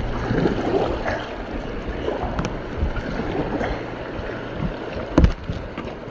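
Whitewater rushing and splashing around a kayak as it runs down a rock slide in a rapid, with a sharp knock about five seconds in.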